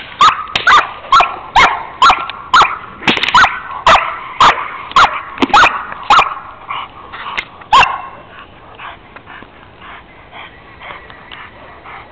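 An 11-month-old German Shepherd barking loudly in a quick run, about two barks a second, stopping about eight seconds in.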